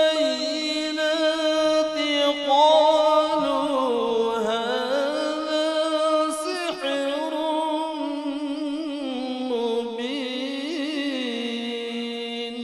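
A man reciting the Quran in the melodic, chanted tajweed style into a microphone, drawing out one long ornamented phrase whose pitch dips and climbs again. Near the end he settles on a held lower note.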